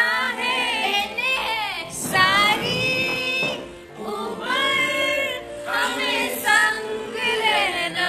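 A small group of young voices singing a song together.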